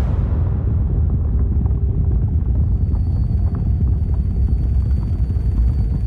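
A vibration test rig shaking a clamped laptop, giving a steady low rumble. Faint light ticks are scattered through it, and a thin high whine comes in about two and a half seconds in.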